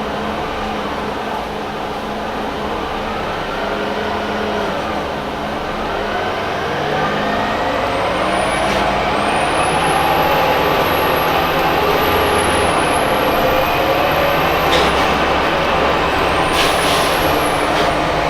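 Orion VII CNG bus's Detroit Diesel Series 50G engine and Allison B400R transmission under way, getting louder as the bus picks up speed, the driveline pitch climbing and dropping. A high whistle rises and falls above it from about eight seconds in, and short hisses of air come near the end.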